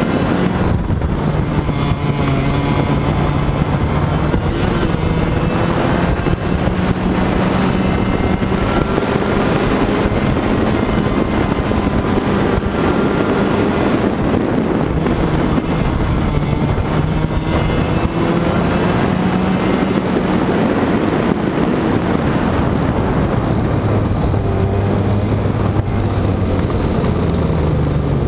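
Racing kart's two-stroke engine at full race pace, heard on board, its pitch climbing slowly along the straights and dropping back as it lifts for the corners, several times over.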